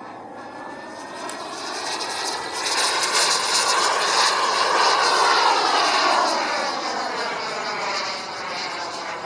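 Radio-controlled model jet flying past. Its engine noise swells to a peak about five seconds in and then fades away, with a whine that sweeps in pitch as it passes.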